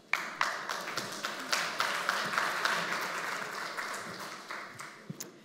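Audience applauding: the clapping starts suddenly and dies away gradually toward the end.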